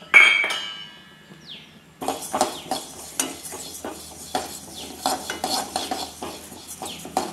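A single ringing metallic clang at the start, then, from about two seconds in, a spoon stirring and scraping split moong dal around a metal kadai as it dry-roasts: a run of irregular clinks and gritty scrapes of the grains against the pan.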